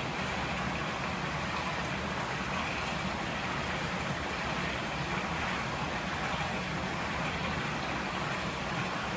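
River water flowing, a steady even rush with no breaks.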